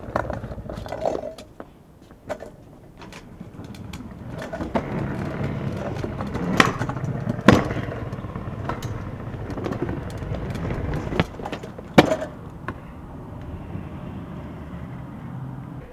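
Stunt scooter's wheels rolling over brick pavers, with three sharp clacks of the scooter striking the pavement, the last about three-quarters of the way through.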